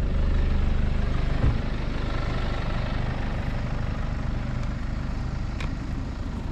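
A four-wheel drive's engine and road noise as it drives along, easing off gradually as it slows, with a single knock about a second and a half in.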